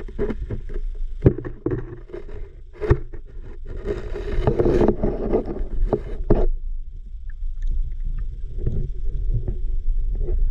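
Muffled sound from a submerged underwater camera: a run of knocks and scrapes as its housing brushes the silty riverbed, thickest for a couple of seconds in the middle. After that it settles to a quieter low water rumble with a few small clicks.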